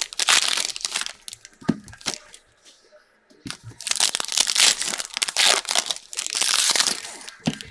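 Foil trading-card pack wrappers being torn open and crinkled by hand, in two bouts of rustling with a short pause about two seconds in.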